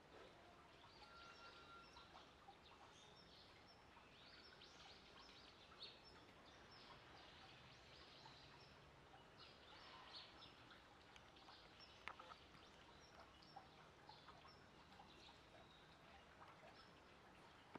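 Near silence: faint outdoor ambience with small birds chirping now and then, and a few soft clicks.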